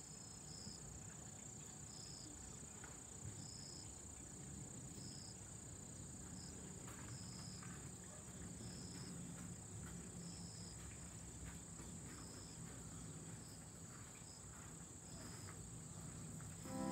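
Faint insects singing: a steady high-pitched trill with a shorter chirp repeating about once a second.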